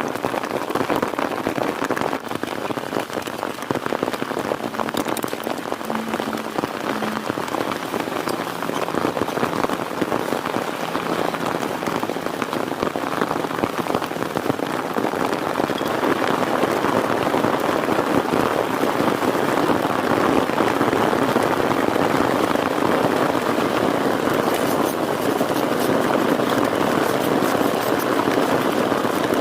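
Heavy rain falling steadily as a dense patter, growing a little louder about halfway through.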